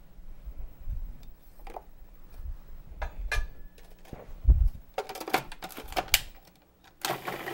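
Scattered plastic clicks and knocks from a food processor's lid and feed-tube pusher being handled, with a few dull low thumps. A cluster of sharper clicks comes about five to six seconds in.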